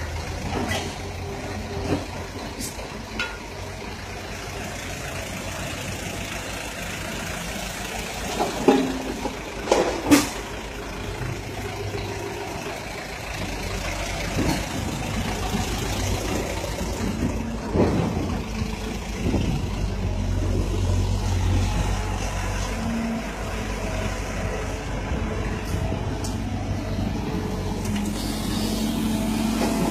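Diesel engines of a dump truck and a crawler excavator running steadily, with two sharp knocks about a third of the way in. The low engine rumble grows louder from about halfway on, as the excavator's rear engine end comes close.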